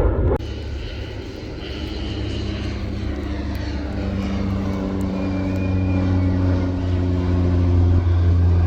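Airliner engine noise, a steady low hum that grows steadily louder as the plane comes nearer overhead, then cuts off suddenly.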